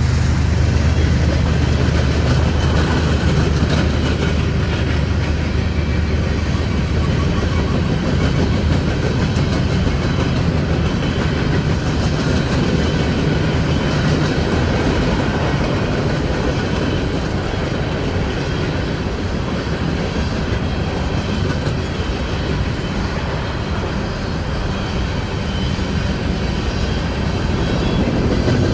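Coal cars of a CSX freight train rolling past: a steady, loud rumble of steel wheels on rail with faint clicks.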